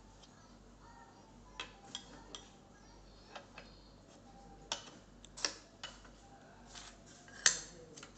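Scattered metal clicks and clinks as the lever arm and test parts of an oil friction tester are handled and fitted, the loudest knock about seven and a half seconds in.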